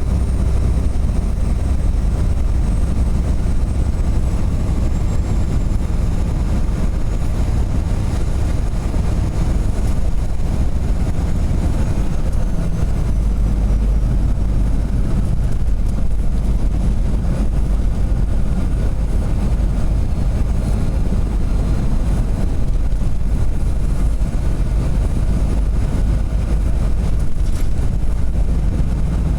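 A semi truck driving down the highway: a steady, unbroken low rumble of engine and road noise.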